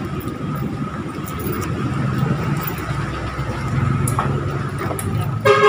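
Steady low rumble of background noise, with a short horn honk about five seconds in.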